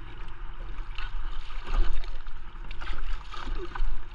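Kayak paddles dipping and splashing in a slow river, with water lapping around the plastic boats: a run of short, irregular splashes over a steady low rumble.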